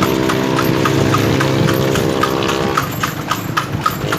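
A kalesa horse's hooves clip-clopping on the road in a steady trot, two or three hoofbeats a second. A motor vehicle's engine hums alongside and drops away about three seconds in.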